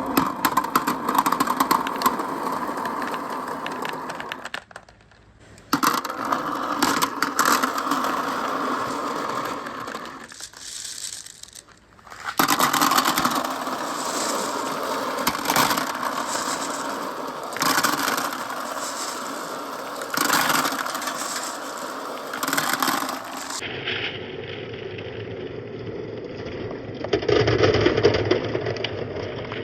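Marbles rolling and clattering along a handmade marble run track: a continuous rumble of rolling with many sharp clicks as marbles knock against the track and each other. It breaks off briefly twice and changes abruptly in tone about three-quarters of the way through.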